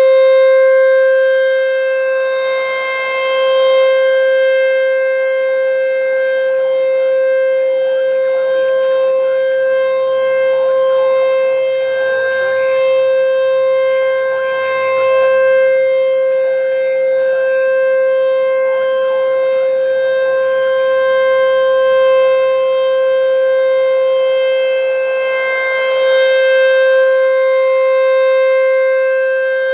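American Signal T-128 outdoor warning siren sounding one loud, steady tone of unchanging pitch during a routine monthly siren test.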